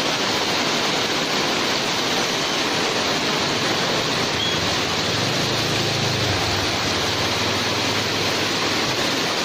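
Heavy rain falling on market stall awnings and a flooded street, a steady hiss with water pouring off the awning edges. A little past halfway, a passing motorbike's engine adds a faint low hum.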